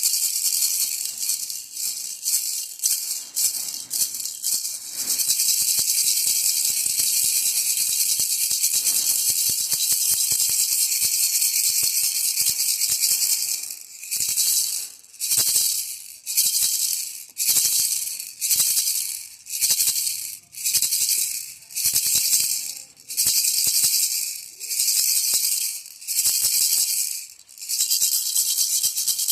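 Baby rattle shaken, a high dry rattling hiss: first shaken continuously, then from about halfway through in separate shakes roughly once a second, and continuous again near the end.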